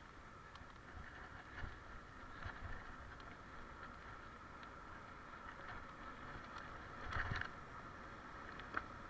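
Mountain bike rolling along an asphalt path: a steady rolling noise from the tyres and drivetrain, with a few light knocks and rattles from the bike over bumps. The loudest rattle comes about seven seconds in.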